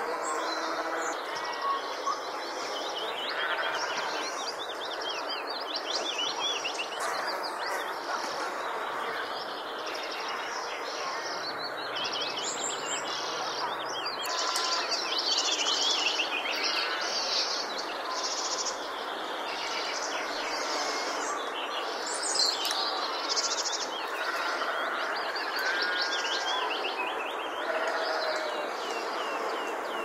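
A chorus of many birds chirping and trilling at once, dense and continuous, over a steady background hiss.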